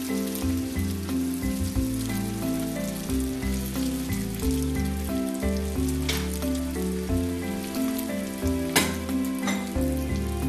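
Instrumental background music over the steady sizzle of diced blood and onion frying in olive oil in a frying pan, with a few sharp knocks in the second half.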